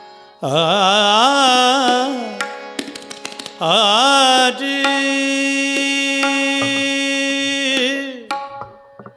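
Male devotional singer drawing out a wordless, ornamented vowel in a Marathi Varkari bhajan, with harmonium accompaniment. A wavering phrase lasts about two seconds, a few tabla strokes follow, then a second phrase settles into a long held note that falls away near the end.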